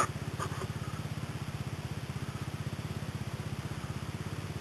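Dirt bike engine idling steadily with an even, low pulsing beat.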